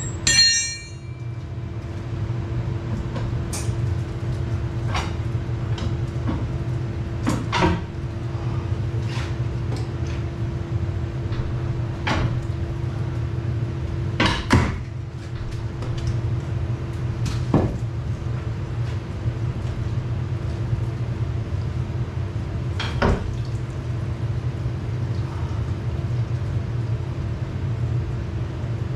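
Scattered metal clanks and knocks from work on a biogas plant pump, over a steady low machine hum. A ringing metallic clank right at the start and a loud knock about halfway stand out.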